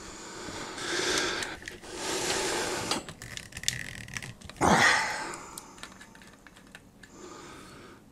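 Small clicks and rubbing of a tripod head as a quick-release camera clamp is twisted tight onto it by hand. Two long, heavy breaths come out about one and two seconds in, and a louder, shorter huff follows near the middle.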